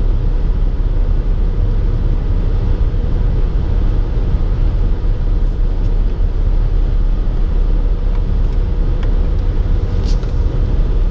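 Car cruising at highway speed, heard from inside the cabin: a steady low drone of road and engine noise.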